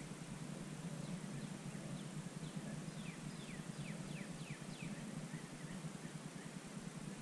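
A small bird singing: a series of short whistled notes, each sliding down in pitch, coming faster as the song goes on, over a steady low hum.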